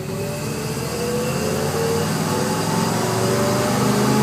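1958 Chevrolet 2.5-ton truck running down the road, heard from inside the cab, its engine note rising slowly and getting louder as the truck picks up speed.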